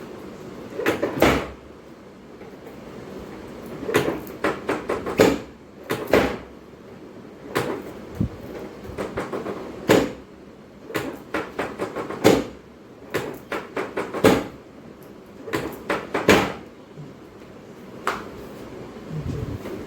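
Bursts of sharp knocks and clicks during a chiropractic adjustment, several quick strikes at a time, repeating every second or two.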